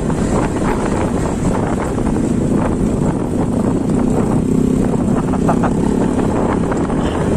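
Honda Click scooter's single-cylinder engine running while it is ridden over a rough dirt trail, with wind on the microphone and scattered knocks from the bumps.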